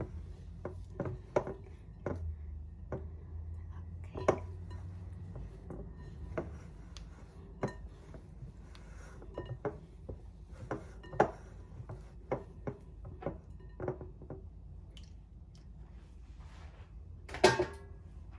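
Hands rubbing and tossing crumbled flatbread with flaxseed in a glass bowl: irregular knocks and clicks of fingers against the glass with soft rustling, and a louder clatter near the end.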